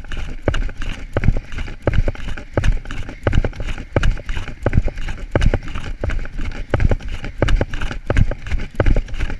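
Running footsteps striking grass in a steady, fast stride: a regular rhythm of thuds, the strongest a little over one a second with lighter ones between, over a constant hiss of wind and movement.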